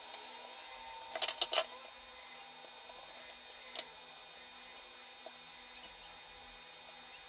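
Light clicks of metal tweezers being handled and set down on a plastic card: a quick run of about four about a second in, and a single click near four seconds, over a faint room hum.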